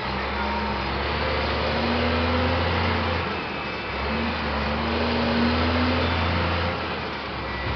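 Scania 124 truck's six-cylinder diesel running under way, heard from inside the cab, its steady drone rising slowly in pitch. The engine note drops away briefly about three seconds in and again near the end.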